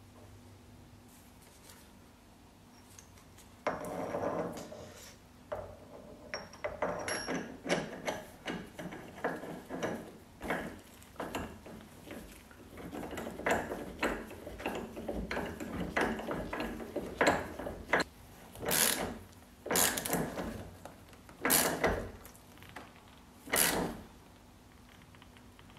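Socket ratchet clicking in quick runs as the steering-wheel centre nut is tightened, starting about four seconds in. Near the end come several louder single strokes about a second and a half apart.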